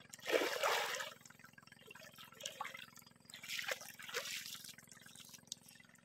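Water splashing and dripping as a person bathes standing waist-deep in it: a splash near the start, another about three and a half seconds in, and smaller trickles between.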